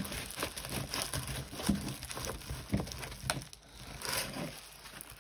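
Diamond painting canvas being rolled up by hand against its curl, crinkling and rustling with scattered small taps and clicks, to straighten the canvas and make it lie flat.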